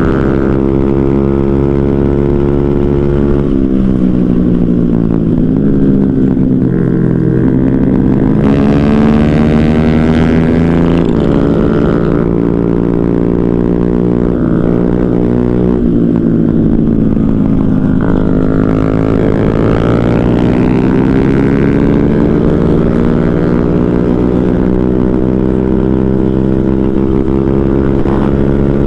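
Motorcycle engine running under way, with rumble from riding. Its pitch falls from about 4 s in and climbs again near 8 s, and the same fall and rise comes again from about 16 s to 20 s, as the bike slows and speeds back up.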